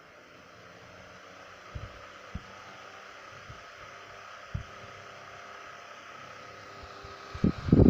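1950s Uber oscillating desk fan with a single-speed shaded-pole motor running, a steady hum with a faint whine that grows slowly louder as it comes up to speed. A few soft low thumps come through it, and a loud low rumble sets in near the end.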